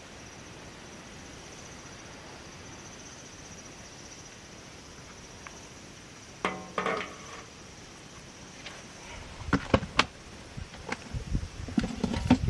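Steady high insect buzz in the background. A short pitched clank about six and a half seconds in, then several sharp knocks and low thumps near the end as camping gear is handled.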